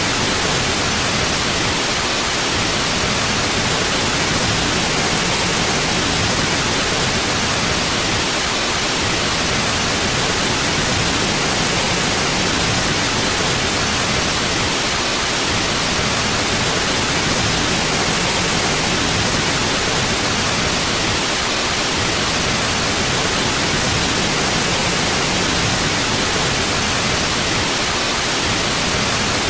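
Steady white noise: an even, unchanging hiss across the whole range.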